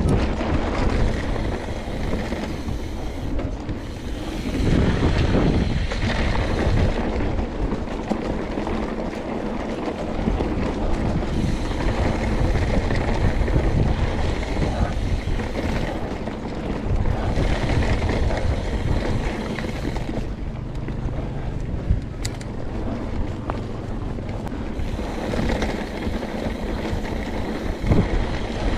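Trek Remedy mountain bike rolling fast over a dirt trail and bare sandstone: a steady rush of wind on the action camera's microphone and tyre noise, with a few sharp knocks from the bike over bumps.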